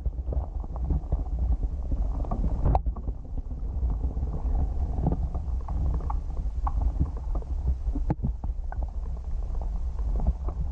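Muffled underwater rumble from a camera held in a waterproof housing under the lake surface, with irregular faint crackles and two sharper clicks, about three and eight seconds in.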